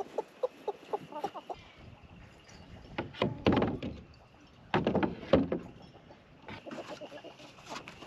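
Hens clucking in quick short notes, then two loud scraping clatters about three and five seconds in: a plastic bucket and gloves being handled on the mobile chicken coop's corrugated roof.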